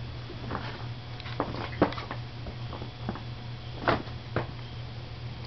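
Paper grocery bag crackling in short scattered crinkles as kittens paw at it and push into it, with the loudest crackles about two and four seconds in, over a steady low hum.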